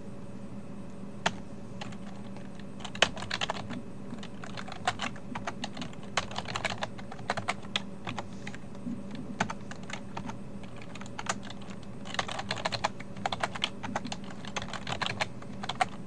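Typing on a computer keyboard: short bursts of rapid keystrokes with single key presses between them, over a faint steady hum.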